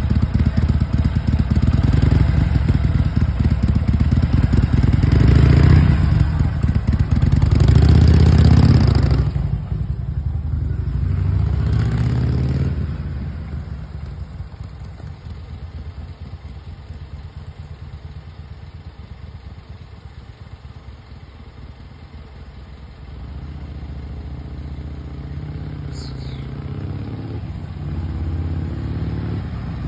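Harley-Davidson V-twin motorcycle engine running close by and revved twice, then pulling away and fading to a distant rumble. It grows louder again over the last several seconds as the bike rides back.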